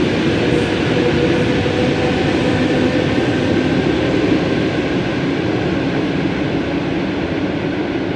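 ED4M electric multiple unit running along the track: a steady rumble of wheels and running gear with a faint steady whine, slowly getting quieter over the last few seconds.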